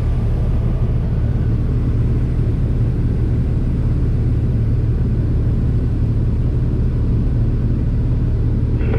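Diesel engine of a large farm machine running steadily under harvest work: a loud, even low drone.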